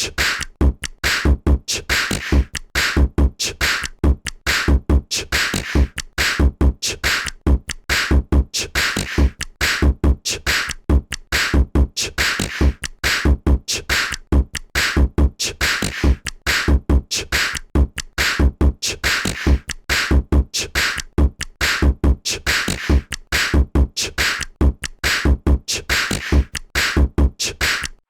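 A Cubot X6 stock ringtone playing: an electronic tune over a steady, repeating drum beat with a strong kick.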